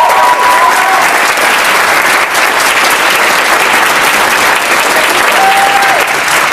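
Large crowd in a hall applauding loudly and steadily, with a couple of held cheers or whoops rising over the clapping, one fading out about a second in and another near the end.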